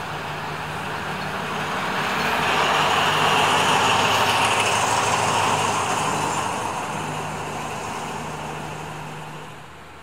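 State Railway of Thailand diesel-electric locomotive running past close by at low speed during a locomotive change. Its steady engine note swells to a peak about three to five seconds in, then fades as it moves away.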